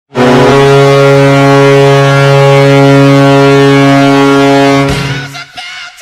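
Columbus Blue Jackets arena goal horn sounding a loud, steady chord of several held tones for about five seconds, then dying away as music starts near the end.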